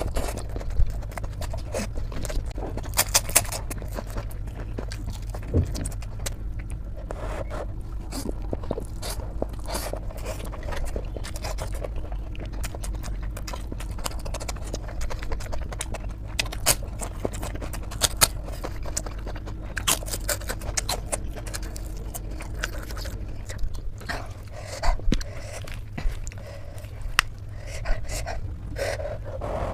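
Irregular scraping with many short, sharp clicks and taps scattered through it, over a steady low hum.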